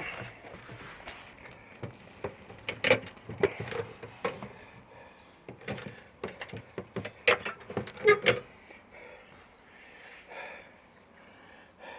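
Ratchet strap being cranked tight, its metal ratchet clicking in irregular groups of sharp clicks, lifting the concrete post against the upturned wheelbarrow.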